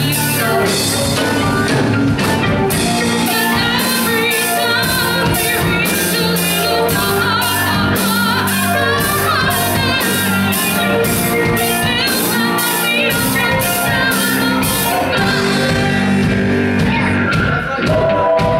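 Live rock band playing: electric guitar, bass, keyboard and drum kit, with a woman singing over it. The drums keep a steady cymbal beat that drops out near the end.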